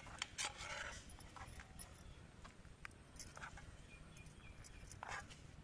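Faint clinks and scrapes of a steel spoon against a nonstick pan and a small glass bowl as hot sugar syrup is spooned out, with a slightly louder scrape near the start and another about five seconds in.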